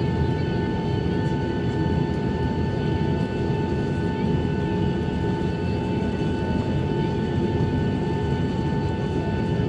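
Steady cabin noise of a Boeing 737-800 on the ground after landing: a continuous low rumble with several steady whining tones, the loudest a little under 1 kHz.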